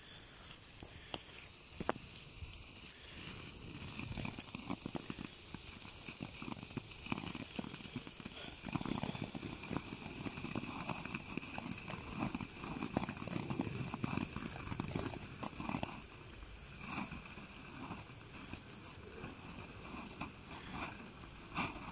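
Small firework ground fountains (Lesli Joystick and Glitzerregen) burning on asphalt, a steady hiss with dense small crackles as they spray sparks. The crackling is busiest in the middle of the stretch.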